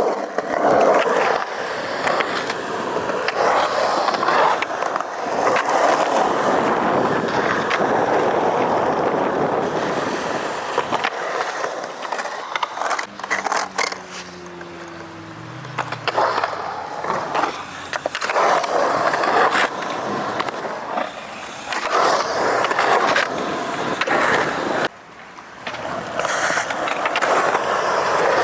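Skateboard wheels rolling over skatepark concrete, with a string of sharp clacks and knocks as the board and trucks hit the ground and edges. The rolling rumble drops away for a few seconds in the middle and again briefly near the end.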